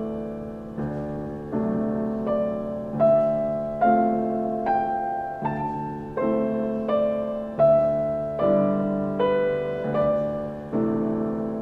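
Slow piano music, with notes and chords struck at an even pace of a little under one a second, each ringing and dying away. The melody climbs through the middle and then falls back.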